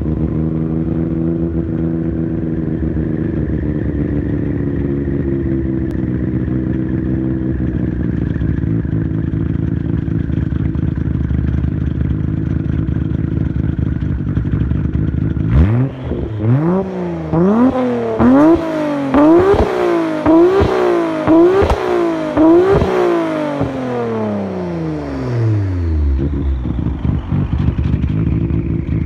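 Nissan Skyline GT-R R32's RB26DETT twin-turbo straight-six heard at the exhaust, idling steadily. About halfway through it is revved in a quick run of about seven throttle blips, then the revs drop back to idle.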